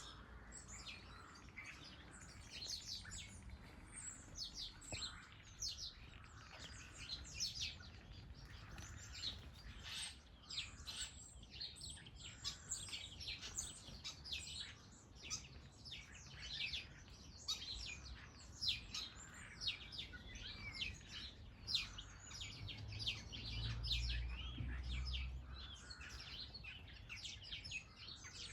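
Many small garden birds chirping and twittering continuously in quick, overlapping calls. A low rumble rises for a few seconds near the end.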